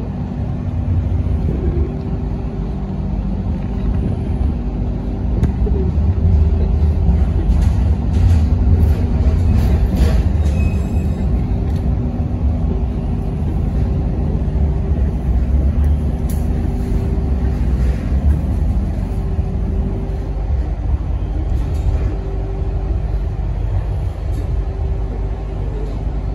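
Hong Kong Light Rail Comeng car running along the track, heard from inside: a steady low rumble of wheels on rail under a steady hum, with a few short clicks about eight to eleven seconds in.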